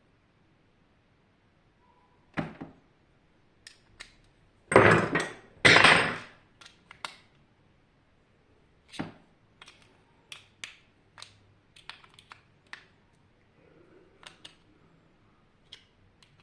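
Tools and metal parts being handled during disassembly: scattered clicks, knocks and clinks, with two louder clattering sounds about five and six seconds in.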